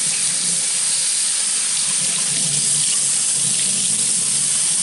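Water running steadily from a kitchen faucet, filling a container for a 50-50 vinegar-and-water mix.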